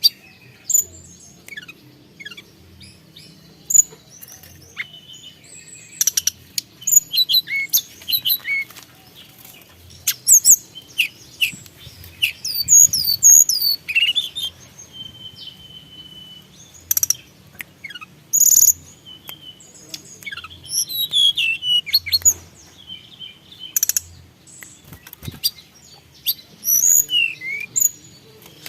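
Tledekan gunung songbird singing vigorously: bursts of rapid, varied chirps and quick sweeping notes with short gaps between, and one longer level whistle about halfway through.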